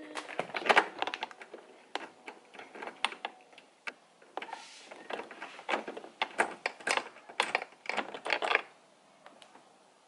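Ratchet wrench clicking in short, irregular runs as a 10 mm bolt inside a car door is undone, stopping about eight and a half seconds in.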